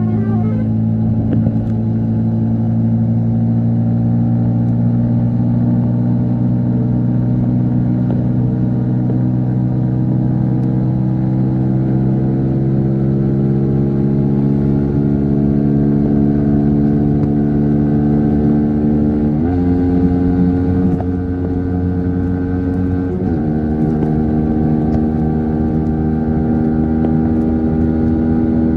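Yamaha MT-15 V3's 155 cc single-cylinder engine and exhaust under way at highway speed, its note climbing slowly as the bike gathers speed. The note changes abruptly about two-thirds of the way through and again a few seconds later.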